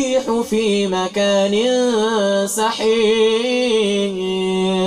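A man's voice reciting the Quran in a drawn-out melodic chant, gliding between long held notes. Near the end it settles on one long steady note.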